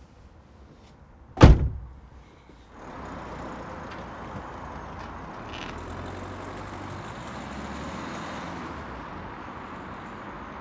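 A car door slams shut once, loudly, about a second and a half in. Then the small hatchback's engine runs steadily as the car pulls away.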